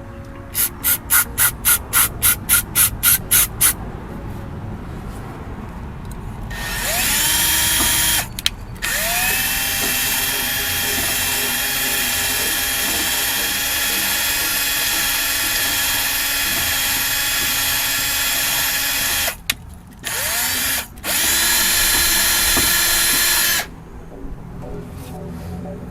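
Electric drill spinning a .410 gun-cleaning bore brush to scrub a brake part clean. It opens with a dozen quick short bursts, then the motor winds up to a steady whine that holds for about twelve seconds, followed by two shorter runs near the end.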